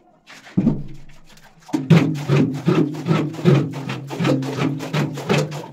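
Hollow knocks of a plastic pail against the concrete floor of an empty underground water tank, each one booming briefly in the enclosed concrete space. One knock comes about half a second in, then a quick run of knocks, about four a second.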